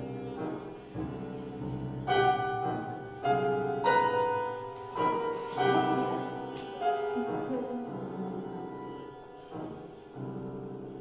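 Contemporary chamber music for violin, viola, cello, clarinet and piano: sustained low tones underneath a run of loud struck piano chords, each ringing and fading, about six of them between two and seven seconds in, then a quieter passage.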